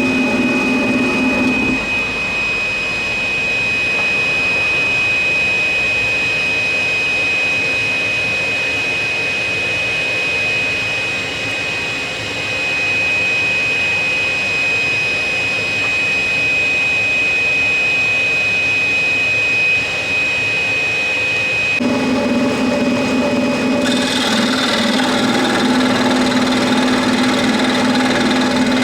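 Electric scroll saw running and cutting through thick pine, a steady mechanical buzz with a high whine. About two-thirds of the way through the whine stops and a lower hum takes over.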